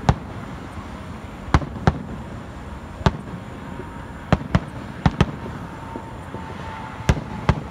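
Aerial firework shells bursting: about ten sharp bangs at irregular intervals, several coming in quick pairs.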